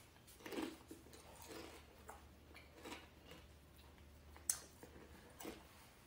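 Very quiet room with a few faint, scattered small clicks and rustles, the sharpest a single click about four and a half seconds in.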